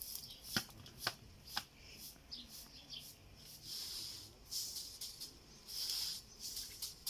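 Three sharp knocks about half a second apart, followed by repeated short rustling and scraping sounds.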